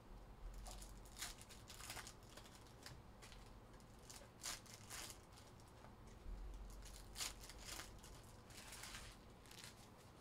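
Faint, scattered crinkling and rustling of trading card pack wrappers being handled and torn open, with a few sharper tears.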